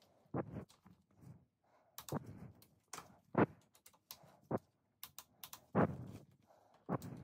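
Torque wrench working the handlebar clamp bolts: an irregular series of separate clicks and knocks as the bolts are tightened in turn toward 10 Nm.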